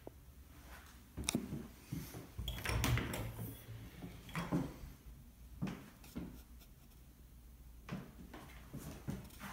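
An interior door being opened by its knob: a string of clicks and knocks, the loudest cluster about three seconds in, then a few softer knocks.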